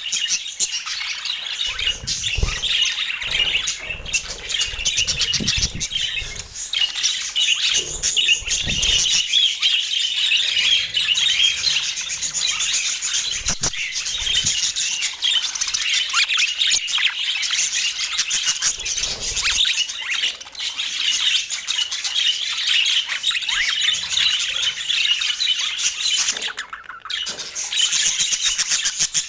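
A flock of budgerigars chattering and warbling, a dense, continuous twitter of high chirps and squawks, with a short lull near the end.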